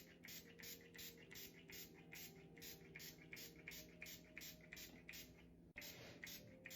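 Hair treatment oil being applied to singed hair: faint, quick hissing strokes, about four or five a second, with a short break near the end, over a low steady hum.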